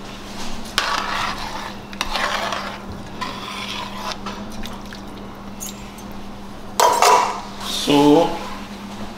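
A spoon stirring and scraping in a pot of rice and water, with clinks of utensil on pot. A louder clatter comes about seven seconds in.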